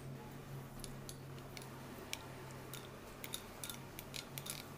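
Faint, irregular light clicks of a metal spoon against a glass bowl as rice and lentils are stirred in water to wash them, coming more often in the second half, over a low steady hum.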